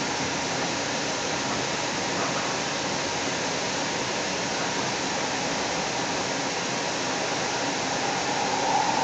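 Seattle Link light rail train running, heard from inside the car: a steady rushing noise of the moving train. A higher-pitched note swells briefly near the end.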